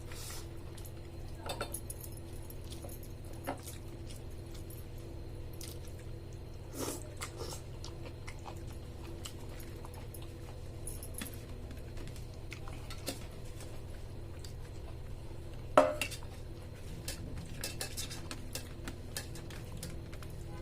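A person eating rice and vegetable curry: chewing, with scattered light clinks and knocks on a plate over a steady low hum. The loudest knock comes about two-thirds of the way through.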